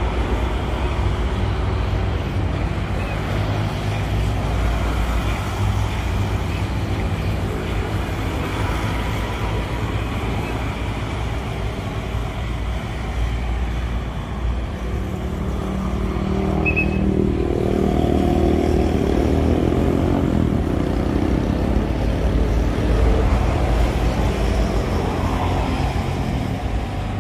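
Steady road traffic from vehicles on an adjacent road, with a low rumble of wind on the microphone. About halfway through, one heavier engine passes, its sound rising and fading.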